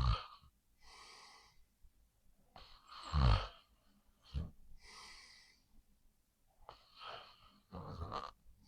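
A person snoring in sleep: loud snores with a low rattle on the breath in, the end of one at the start, another about three seconds in and another near the end. Softer airy breaths out come between them.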